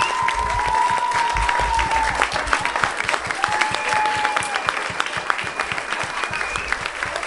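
Audience applauding, with dense, steady clapping and a few held voice-like calls over it.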